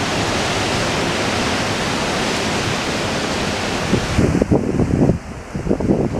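Strong wind, first a steady loud rushing noise, then from about four seconds in gusts buffeting the microphone with irregular low rumbles.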